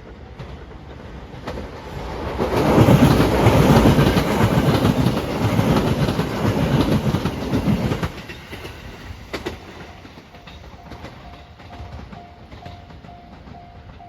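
A train passing close by at a level crossing: the rumble and wheel clatter over the rail joints build about two seconds in, stay loud for some five seconds, then die away. In the last few seconds a crossing warning bell rings, a repeating tone about twice a second.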